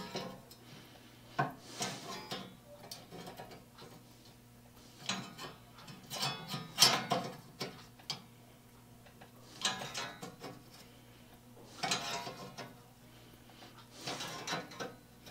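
Hand-held plier-type saw set squeezed onto pruning saw teeth one after another, bending each tooth over to set it. Clusters of metal clicks and clanks come every two to three seconds as the tool closes and moves along the blade, the loudest about seven seconds in.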